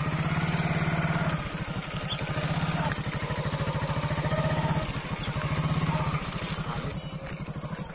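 Hero Glamour's 125 cc single-cylinder four-stroke engine running as the motorcycle pulls away and rides slowly, a rapid even engine beat that swells and eases a few times with the throttle.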